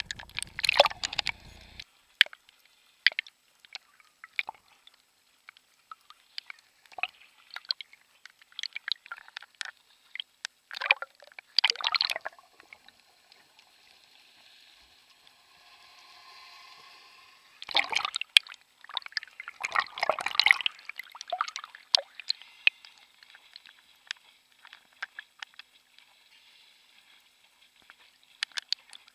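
Seawater sloshing, gurgling and splashing right at a camera held at the surface as it dips under and comes back up, in irregular bursts with a quieter stretch about halfway through.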